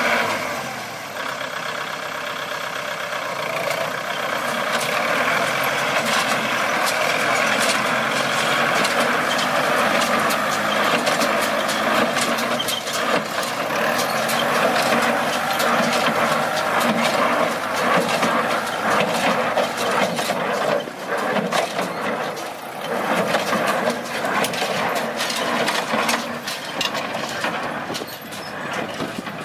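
Tractor engine running steadily with a rapid clatter of metallic knocks and clicks from working farm machinery, the knocking busier in the second half.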